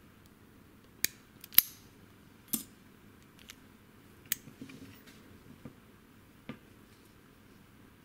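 About six sharp metallic clicks and clacks spread over several seconds, the loudest about one and a half seconds in: a Stanley 40 mm brass padlock, just picked open, with its steel shackle springing free and being worked by hand.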